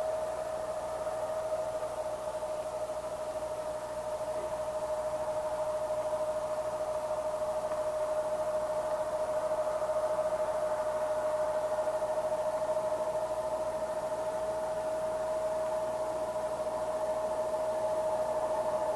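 Jet airliner engines running at idle: a steady whine on one held pitch over a hiss, unchanging throughout.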